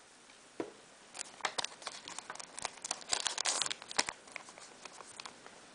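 Foil booster pack wrapper crinkling as it is handled and opened, with scattered light clicks and short rustles in a few clusters.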